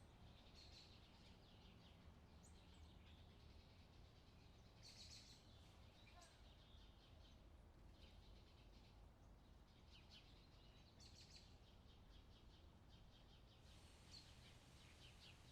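Faint outdoor nature ambience: birds chirping in short scattered bursts over a steady low background rumble.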